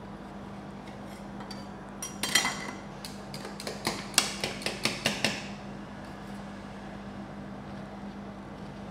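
Metal ice-cream spatulas clinking and tapping against the stainless steel cold plate of a rolled-ice-cream machine: a quick run of sharp metallic taps from about two to five seconds in, over a steady low hum.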